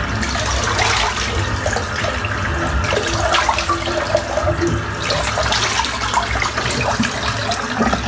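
Water running steadily from a bathroom tap into the sink, with irregular splashing as a freshly shaved face is rinsed.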